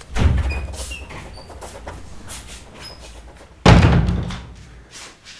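Two heavy thuds, each trailing off in a low rumble: one at the start and a louder one about three and a half seconds in.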